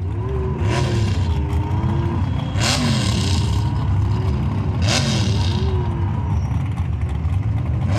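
Off-road buggy engines idling with a steady low drone, revved up and down while waiting to launch, with three sharp revs about a second, three seconds and five seconds in.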